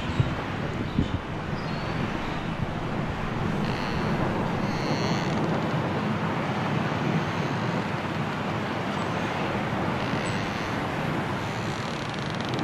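Strong wind of a snowstorm blowing steadily, an even rushing noise without a break.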